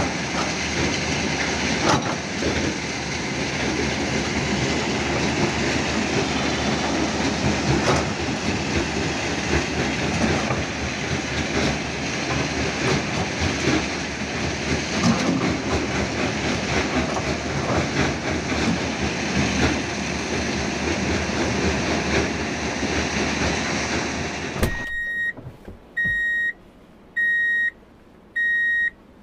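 Hitachi Zaxis 210F hydraulic excavator running under load, its diesel engine and hydraulics going steadily, with a few sharp knocks. About 25 seconds in, the sound cuts off abruptly and a high electronic beep repeats about once a second.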